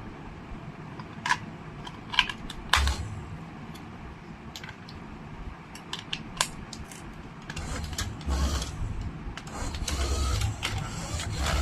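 Scattered sharp clicks and taps from objects being handled. From about eight seconds in they give way to rustling with low thuds.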